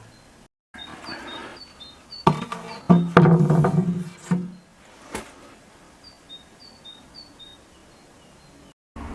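Several sharp knocks and a short clattering, scraping stretch of objects being handled, with small birds chirping faintly in the background.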